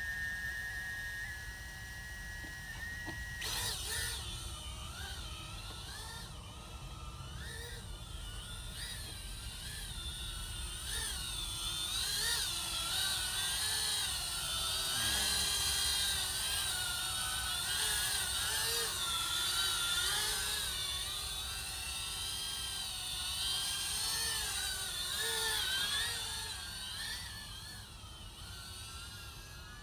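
Small quadcopter drone's propellers starting suddenly about three seconds in, then a high whine that wavers up and down in pitch as the motors hold it in a hover. It grows louder in the middle and fades near the end.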